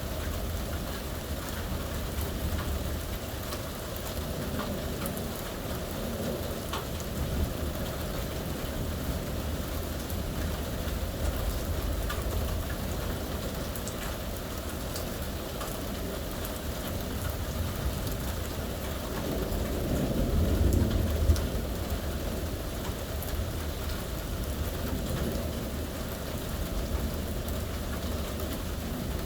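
Steady rain falling, with low rolling thunder that swells several times and is loudest about two-thirds of the way through.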